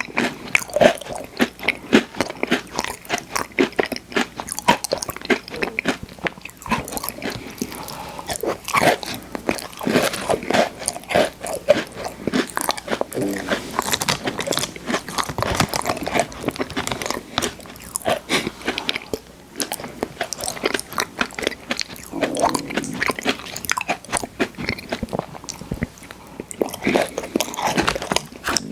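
Close-miked mouth sounds of biting and chewing Oreo sandwich cookies: a dense, continuous run of crunchy clicks throughout.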